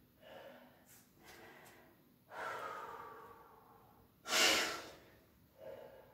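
A man breathing hard while recovering from exercise, with his heart rate still up. He gives a long exhale about two and a half seconds in, then a sharper, louder breath out about a second later, with softer breaths around them.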